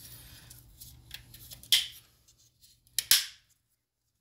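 The black plastic case of an active grille shutter actuator being snapped back together by hand: light handling rustle, then sharp plastic clicks as the clips latch, one about a second and a half in and a louder double click about three seconds in.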